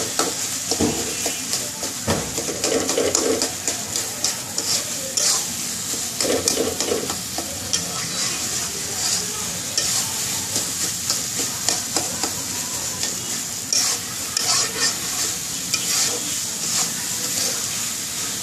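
Green jackfruit curry sizzling in a pan as it is stirred with a metal spatula, which scrapes and taps against the pan at irregular intervals over a steady frying hiss.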